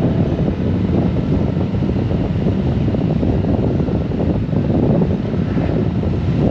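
Steady wind rushing over the microphone of a moving Honda GoldWing motorcycle, a loud, even low rumble of wind, engine and road.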